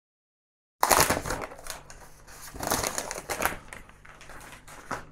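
Silence for almost a second, then rustling and crinkling of the frosted protective sheet being lifted off a tablet in its box, mixed with light clicks and rubs of the tablet being drawn out of the cardboard tray. Loudest when it starts, about a second in.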